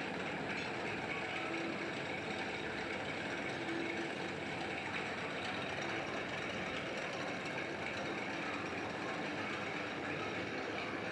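Crankshaft forging press running steadily: a continuous mechanical hum from its electric motor, reduction gearbox and open spur gear train turning.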